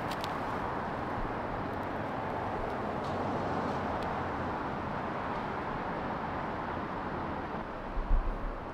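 Steady hum of distant city traffic, even and unchanging, with a few low thumps near the end.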